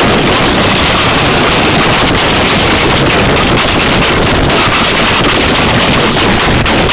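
Extremely loud, deliberately over-amplified and distorted steady noise with no clear tone or rhythm: the 'ear rape' mystery sound.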